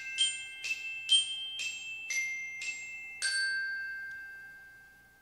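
Logo jingle of bright glockenspiel-like chime notes struck about twice a second, ending on a louder note about three seconds in that rings on and fades out.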